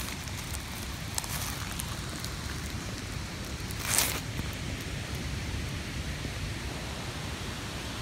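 Steady low rumble of wind on the microphone outdoors, with light rustling of leaf litter and twigs as a hand moves among them. There is one louder, brief rustle about four seconds in.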